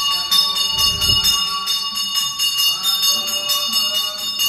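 Temple bells ringing continuously, struck rapidly over and over, as during an aarti. There is a brief low thud about a second in.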